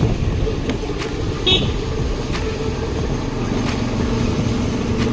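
A vehicle travelling along a road: continuous engine and road rumble, with a short, high-pitched toot about a second and a half in.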